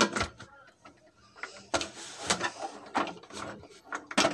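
Aluminium pressure cooker lid being fitted and turned shut on the pot: metal scraping on the rim, with several sharp clicks and knocks as the lid and handles lock into place.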